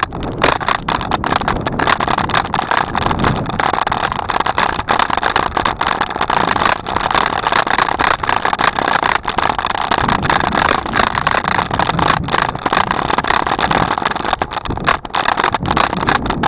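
Bicycle riding noise: a steady rush with constant rapid rattling and clicking as the bike rolls over the path.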